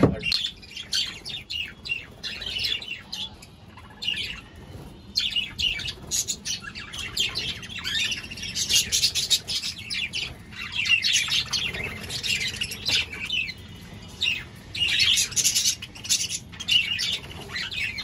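A flock of budgerigars chirping and chattering, many short high chirps overlapping without a break, busiest in the second half.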